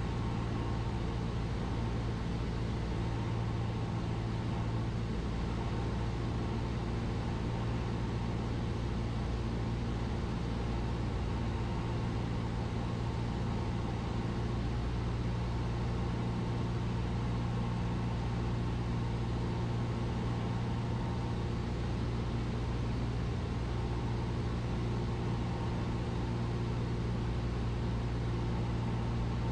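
Cessna 172's piston engine and propeller running steadily in flight, a constant low drone heard inside the cockpit.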